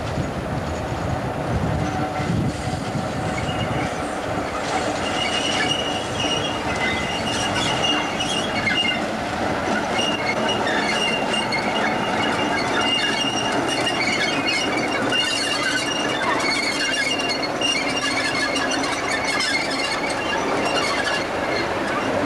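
British Rail Class 47 diesel-electric locomotive with its Sulzer twelve-cylinder engine running as it hauls a passenger train round a tight curve, with rail noise from the wheels. High-pitched wheel squeal starts about five seconds in and keeps coming and going as the locomotive and coaches work round the curve.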